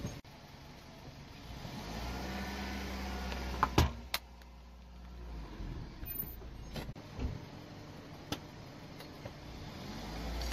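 A car's engine runs with a low rumble that swells and fades. Several sharp clicks and taps cut through it, the loudest pair about four seconds in.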